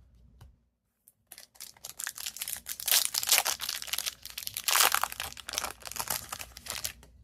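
Crinkling and tearing of a plastic trading-card pack wrapper being handled and opened, a dense run of quick crackles that starts about a second in and peaks twice.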